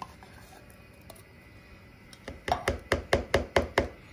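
A spatula is tapped quickly against a mixing bowl to shake off thick condensed soup: about ten sharp knocks in under two seconds, starting about two seconds in.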